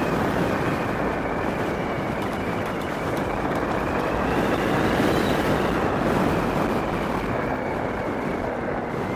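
E-Mobo DuoTork electric kick scooter riding along paving on one of its two motors: a steady rush of wind and road noise, with a faint high motor whine that rises a little about five seconds in and then falls back.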